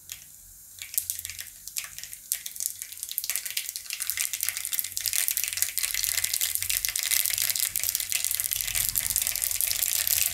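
Mustard seeds sizzling and popping in hot ghee and oil in a kadai: the tempering seeds spluttering, the sign that the fat is hot enough. The popping starts as scattered crackles about a second in and thickens into a dense, steady crackle over a hiss.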